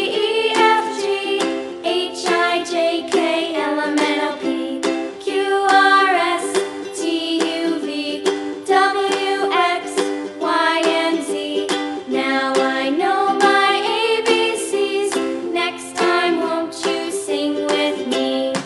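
Background music with a melody of plucked-string notes.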